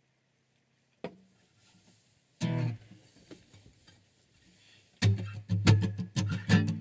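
Acoustic guitar: a light knock about a second in, a single strummed chord ringing briefly a little later, then steady rhythmic strumming starting near the end, about three to four strums a second.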